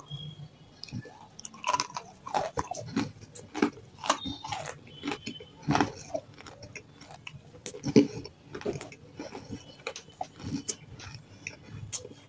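A person biting and chewing crunchy half-roasted lumps and paste close to the microphone: irregular sharp crunches mixed with wet mouth sounds.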